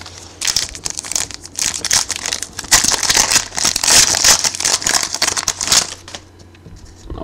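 Foil wrapper of a football trading-card pack crinkling and tearing as it is opened by hand: a dense crackle that stops about six seconds in.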